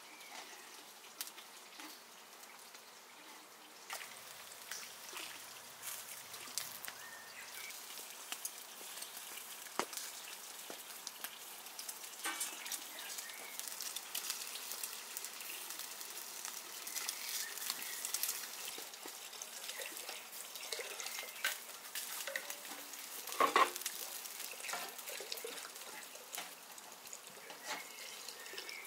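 Lamb liver and tail-fat kebabs sizzling on skewers over a charcoal barbecue, with a steady hiss and many small crackles and pops. One louder knock about two-thirds of the way through.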